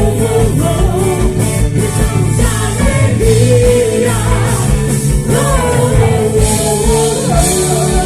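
Live gospel band music: sung vocals over amplified guitar, bass and drums with a steady beat.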